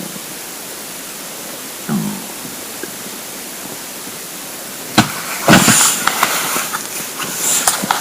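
An empty, hungry stomach gives one short low gurgle about two seconds in, over a steady hiss. From about five seconds in comes a sharp click, then a run of loud scraping and crackling noises.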